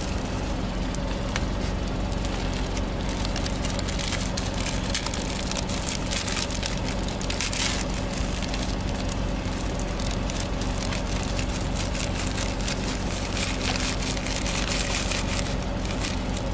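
Plastic snack wrappers crinkling and crushed, crunchy white snack crumbs crackling as they are shaken out into a hand. Under it runs a steady low car engine hum.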